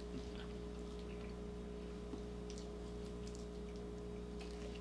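Quiet room with a steady low electrical hum, and a few faint wet clicks and smacks of people chewing chicken wings.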